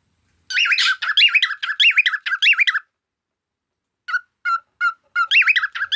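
Cockatiel warbling a whistled song, the pitch rising and falling in quick waves, breaking off about three seconds in. A few short chirps follow, then the warbling starts again near the end.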